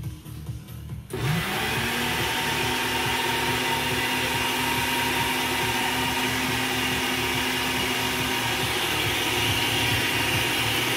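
Countertop blender switched on about a second in: the motor spins up with a short rising hum, then runs steadily, blending a jar of liquid.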